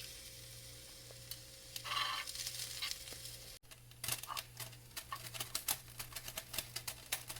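Kitchen cooking sounds at the stove: a short hiss about two seconds in, then, after a brief dropout, a run of quick irregular clicks and light scrapes over a low steady hum.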